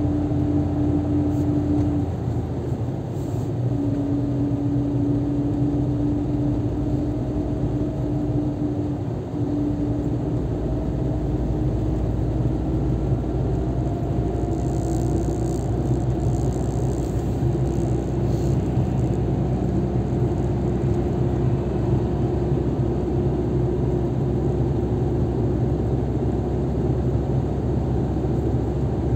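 Car engine and tyre noise while driving, a steady rumble under an engine hum. The hum breaks off briefly twice, then climbs slowly in pitch as the car gathers speed.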